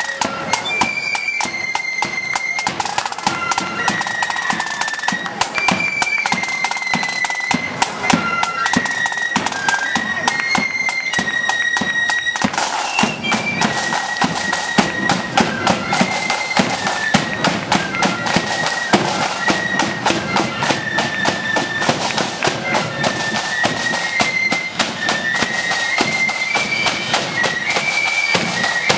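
Loyalist marching flute band playing a tune: massed flutes carry a high melody that steps from note to note over dense snare drumming and a bass drum.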